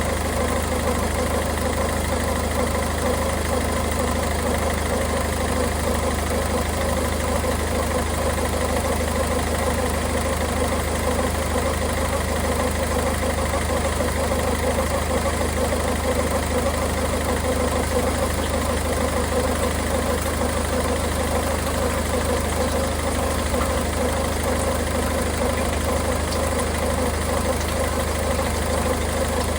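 Peugeot 1.5 BlueHDi diesel engine idling steadily in park, holding the Aisin EAT8 automatic gearbox fluid at its 35–45 °C draining temperature while the excess fluid is let out from the bottom.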